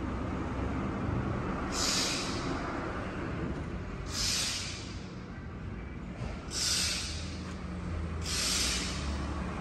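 Four hissing breaths close to the microphone, evenly spaced a little over two seconds apart, over a steady low background rumble.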